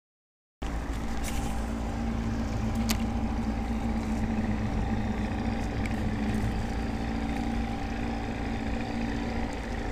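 A boat motor running steadily with a low, even hum, starting abruptly just after the beginning, with a couple of faint clicks.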